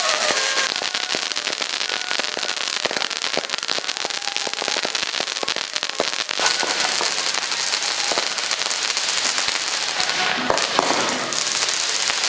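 A string of firecrackers going off in a dense, rapid crackle of many small bangs.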